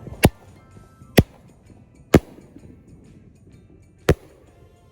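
Aerial fireworks going off: three sharp bangs about a second apart, then a fourth about two seconds later.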